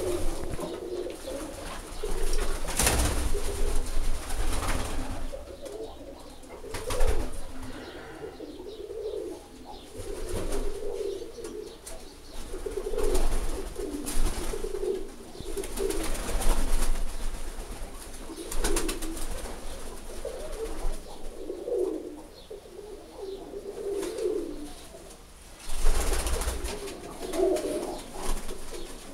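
Roller pigeons cooing over and over in their loft, the calls overlapping in phrases. A few louder knocks or rustles break in, about three seconds in, about seven seconds in and near the end.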